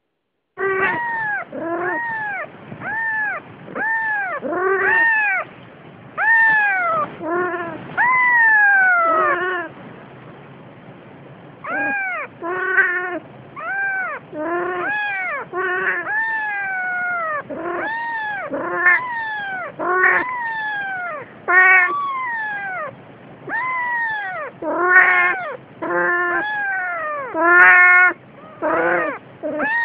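Newborn kitten mewing over and over, short rising-and-falling cries about one to two a second, with a pause of a second or two about ten seconds in. It is the crying of a kitten out of the nest, calling for its mother.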